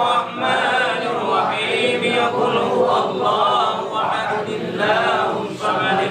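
A group of men chanting Islamic prayers together in unison, the tahlil recitation of a samadiyah gathering for the dead, in continuous rising and falling phrases.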